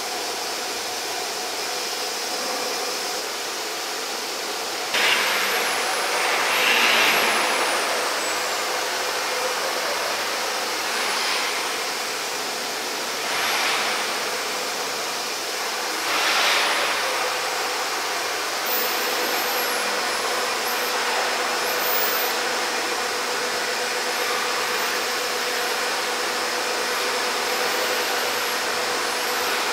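Machinery running: a continuous mechanical hiss and hum, which steps up in loudness about five seconds in. Short high whines sweep down in pitch again and again over it.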